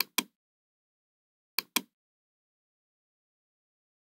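Computer mouse button clicking: two pairs of sharp clicks about a second and a half apart.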